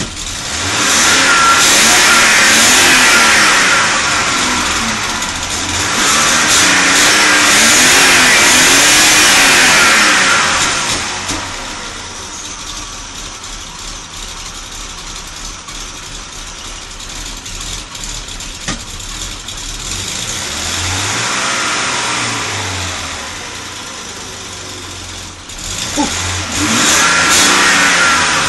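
Volvo 965's 2.5-litre straight-six revved four times, the first two swells held for several seconds, settling back to an uneven idle between them. The rough running comes from low compression on cylinder 2 and a fouled spark plug.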